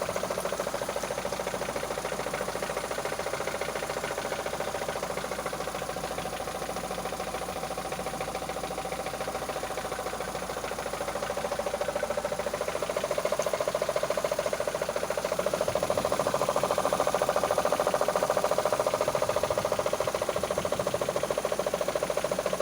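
Mitsubishi Lancer 9 engine running with a rapid, steady knock, which the owner traces to the timing-belt area and cannot identify. The sound grows louder about halfway through.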